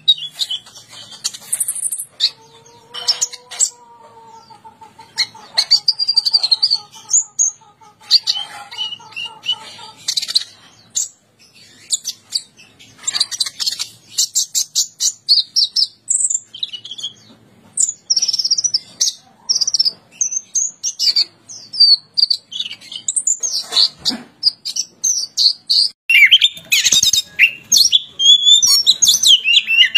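Songbirds singing in quick, varied phrases of high whistles, chirps and rapid clicking trills, growing denser and louder toward the end.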